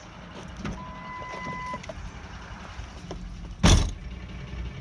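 Low rumble of a pickup truck running, with a short steady tone about a second in and one loud, brief thump about three and a half seconds in.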